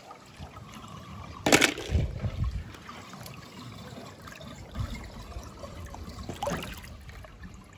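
Pool water splashing and sloshing as a hand and the camera go into the water, with one sharp splash about one and a half seconds in and a smaller one near the end.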